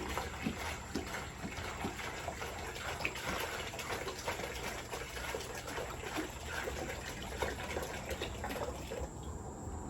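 Seawater being poured from a one-gallon jug into a bucket, splashing and glugging unevenly, and tapering off about nine seconds in as the jug empties.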